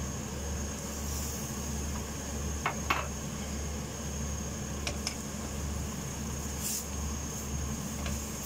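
Silicone spatula stirring diced chicken and grated carrot in a stainless steel pan, with a few short scrapes and knocks against the pan, over a steady low hum.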